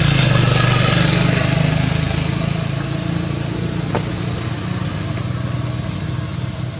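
An engine running steadily, a low hum that is loudest over the first two seconds and then slowly fades, with one short click about four seconds in.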